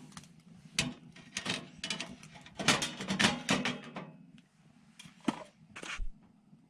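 Irregular knocks and clatters of hard objects being handled, thickest about halfway through and then trailing off into a few single knocks.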